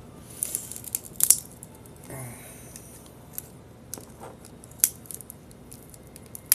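Leatherman Raptor rescue shears crunching through a cell phone's casing: irregular sharp cracks and small snaps as the blades are squeezed, the loudest about a second in and another near five seconds.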